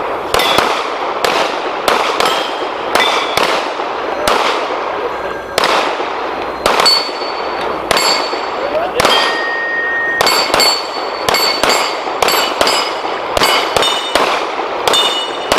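Rapid, irregular pistol fire from two shooters racing each other at steel targets, with the steel plates ringing with a metallic clang after hits. The shots come about once or twice a second, closer together in the second half, and echo after each one. One plate rings out longer about halfway through.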